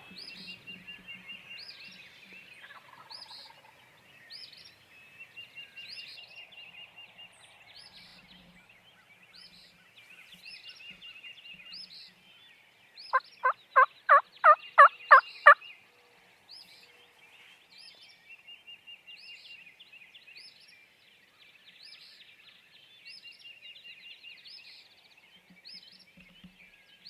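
A run of about nine loud, evenly spaced turkey yelps, growing louder over about two and a half seconds, with songbirds chirping and trilling throughout.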